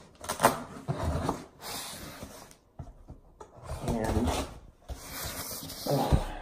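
Hands rubbing and sliding over a cardboard shipping box as it is turned and handled, in several bursts with short pauses between.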